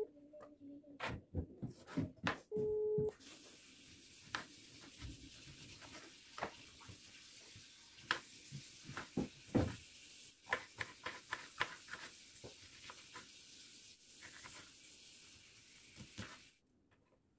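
Kitchen knife slicing tomatoes and a pepper on a wooden cutting board: a run of irregular clicks as the blade strikes the board. A short steady electronic beep sounds about two and a half seconds in, and a steady hiss starts just after it and stops near the end.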